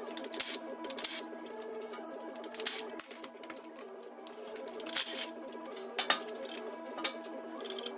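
Background music with a steady drone, over scattered sharp metallic clinks and clanks of hand tools and engine parts as a cylinder head is being taken off an engine block, about seven knocks, the loudest about a second in and near the middle.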